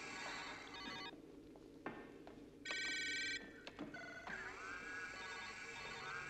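Synthetic electronic tones, like sci-fi computer sounds. A steady chord of tones cuts off about a second in, a few sharp clicks follow, then a brighter ringing tone sounds for under a second near the middle, and tones with a short sweep return for the rest.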